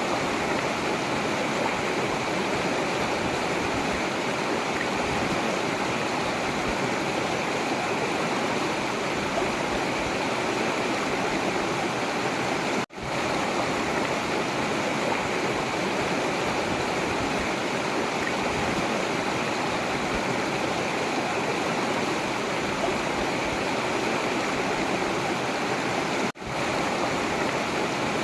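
Forest river water rushing steadily. The sound cuts out for an instant twice, about halfway through and near the end.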